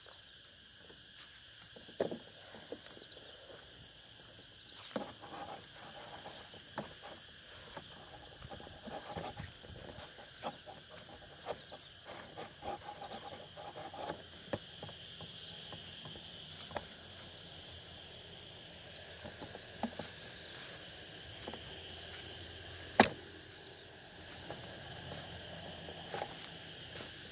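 Forest insects drone in a steady high tone throughout. Scattered small clicks, crackles and snaps run over it, with one louder snap toward the end.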